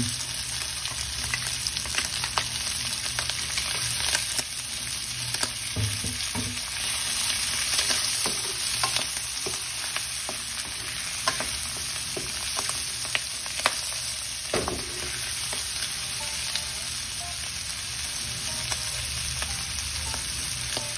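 Chop suey ingredients sizzling in a hot pan as they are stir-fried, with the spatula clicking and scraping against the pan every now and then.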